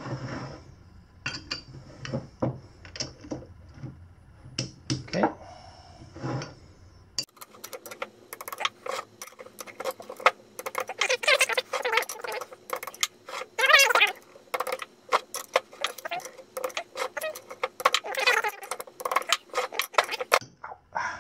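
Metal clicking and clinking from a torque wrench and the sprocket bolts being tightened on a BMW F650GS sprocket carrier. Sparse clicks at first, then quick, dense clicking from about seven seconds in.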